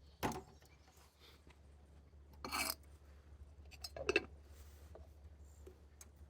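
Camp cookware being handled: a sharp clink about a quarter second in, a short scraping rub around two and a half seconds, and a couple of knocks near four seconds.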